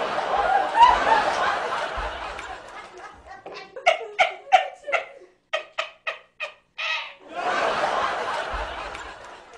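Laughter: several people laughing together, then one voice laughing in short separate bursts, then the group laughing again.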